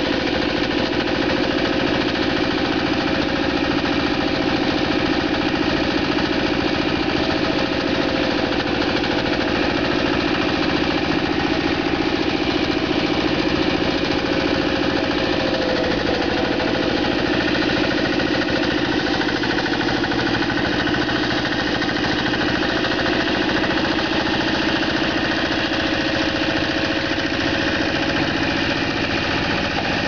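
Crawley 75 small horticultural tractor's engine running steadily as it pulls a plough through the ground, with a fast, even firing beat.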